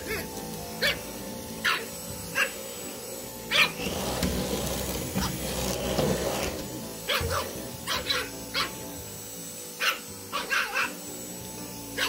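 Pug puppy barking at a vacuum cleaner head in short, sharp yaps, singly and in quick clusters of two or three, over background music.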